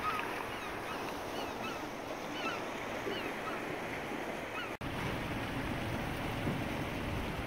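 Sea water washing and lapping against a rocky shore close by, a steady wash of surf noise. Over the first few seconds birds call in many short, rising chirps. The sound cuts out for an instant about five seconds in.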